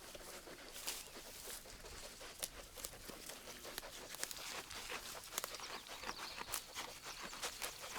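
Shetland sheep grazing in thick pasture grass close by, with irregular crisp snips and rustles of grass being torn and cropped.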